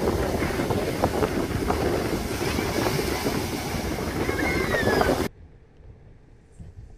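Wind buffeting the microphone over the rush of waves on a choppy sea, cutting off suddenly about five seconds in to a faint street background.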